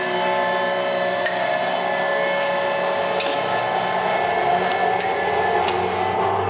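Nicco NSG-6H automatic surface grinder running: a steady mechanical whine made of several constant tones over a low hum, with a few light clicks.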